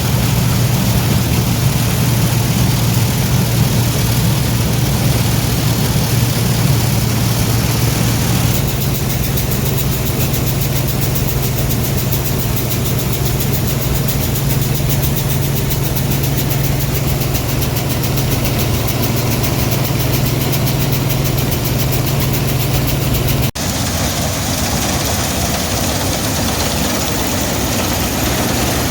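International 403 combine running steadily while harvesting soybeans: a constant engine hum over the wide noise of the working machinery. A split-second break about two-thirds of the way through, after which the sound carries on slightly changed.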